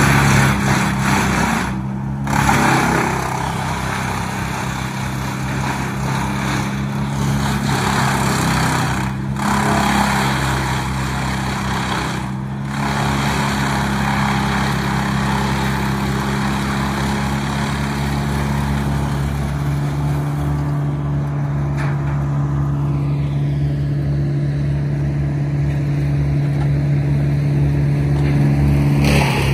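Wood chipper running at a steady engine speed, with a loud rushing noise over it that drops out briefly about three times.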